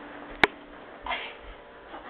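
A single sharp click, then a brief burst of a person's voice about a second in, over a faint steady hum.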